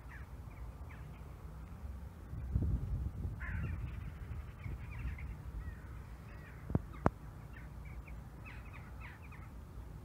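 Short bird calls repeated here and there over a low, uneven rumble, with two sharp clicks about seven seconds in.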